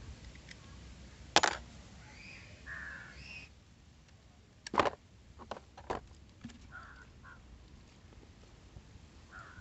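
Crows cawing several times in short calls. Two sharp clicks, the loudest sounds, come about a second and a half in and again near the middle, from metal oil-pump parts being handled.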